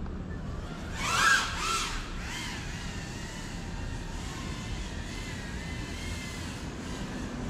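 GEPRC CineLog35 FPV drone's motors and propellers whining in the distance, the pitch wavering as the throttle changes. A brief louder sound with gliding pitch comes about a second in.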